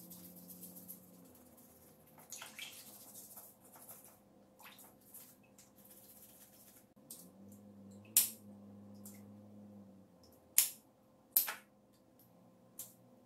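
A blue crab being scrubbed with a small brush over a basin of water, with soft scratching at first. Then come four sharp snips of kitchen scissors cutting through the crab's shell and legs in the second half.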